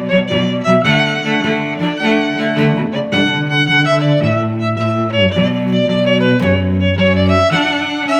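Background music on bowed string instruments, with held melodic notes over lower sustained bass notes that change every second or so.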